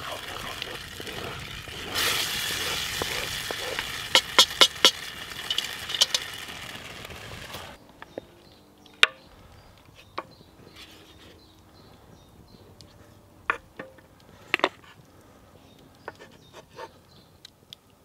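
Gravy bubbling and sizzling in a cast iron Dutch oven as a wooden spoon stirs it, with several sharp knocks of the spoon against the pot; the sizzle cuts off about eight seconds in. After that, quiet scattered clicks and taps of a wooden spoon lifting vegetables out of a pan onto a board.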